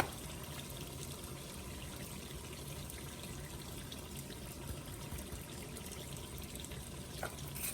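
Ground meat sizzling steadily in a wok on the stove as it is seasoned, an even hiss. A brief sharp knock at the very start.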